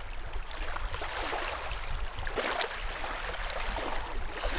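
Small waves lapping and splashing on a lake shore, an irregular watery wash.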